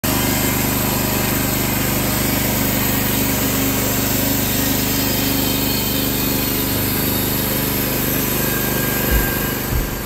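Wood-Mizer LX55 portable band sawmill running steadily on its 14 hp engine. A couple of low thumps come near the end as the sound starts to fade.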